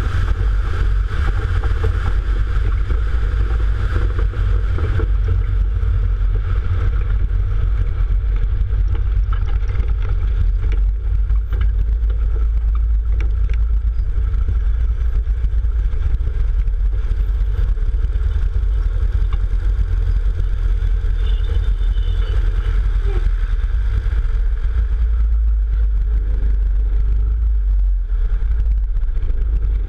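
Small bush plane's piston engine and propeller running steadily while taxiing, mixed with heavy wind rumble on the microphone.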